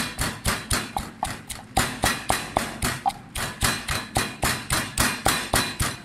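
Rapid, even series of sharp knocks, about four a second, kept up without a break.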